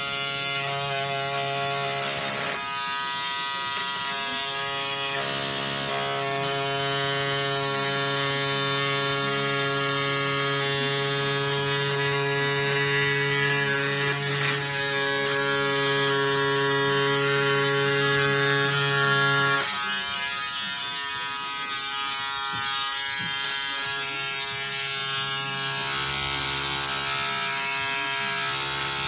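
Cordless electric scissors running continuously as they cut through lining fabric: a steady motor buzz whose pitch shifts a few times as the cut goes on.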